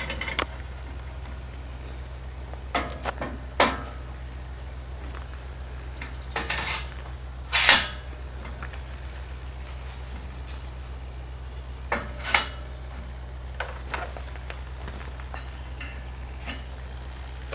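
Scattered metallic clanks and knocks, with one longer scrape about eight seconds in, as the Latch and Roll ATV ramp is fitted onto a pickup truck. A steady low hum runs underneath.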